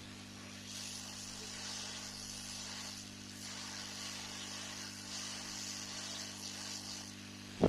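A steady low electrical hum with a soft, airy hiss that comes in about a second in and fades near the end, followed by a single sharp click.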